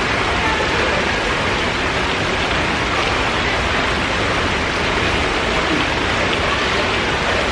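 Steady rush of splashing water from an indoor pool's bubbling floor jets and rock waterfall, an even unbroken noise.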